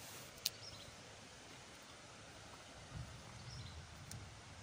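Quiet rural outdoor ambience with a few faint, short bird chirps, a single sharp click about half a second in, and low rustling of handling or footsteps later on.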